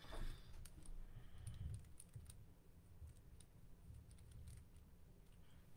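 Faint, scattered clicks and light taps of hands handling a small tincture box and its bottle, over a low steady hum.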